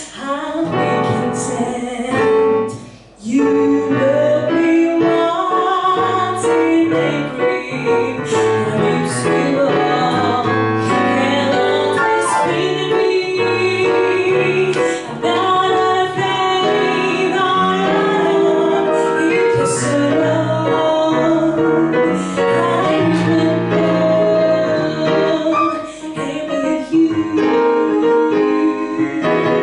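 A woman singing a jazz standard into a handheld microphone, accompanied by a digital piano, with a brief break in the music about three seconds in.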